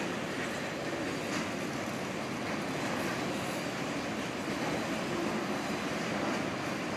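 Mixed freight train's cars rolling past, a steady rumble of steel wheels on the rails with a few faint clacks.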